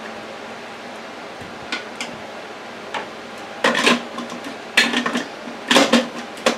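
Plastic bowl of a Ninja food processor clattering against its motor base as it is set back on and locked in place. A few light clicks, then three loud clacks in the second half and a last one at the end.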